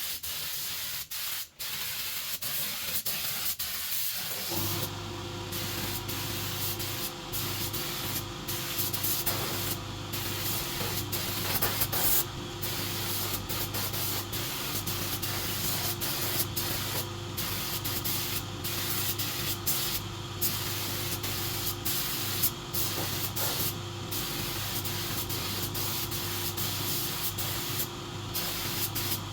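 A steady hiss, joined about four seconds in by a steady motor hum. The hiss breaks off briefly every second or so.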